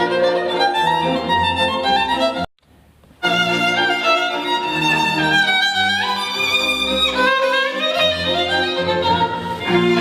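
Violin music with bowed-string backing played back through a portable Bluetooth speaker. The music drops out for under a second about two and a half seconds in, then resumes.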